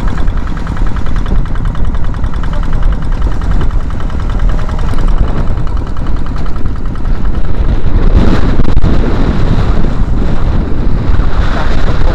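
Kubota single-cylinder diesel on a small outrigger fishing boat running steadily under way, a fast even chugging beat, over rushing wind and water; a louder surge of wind and splash about eight seconds in.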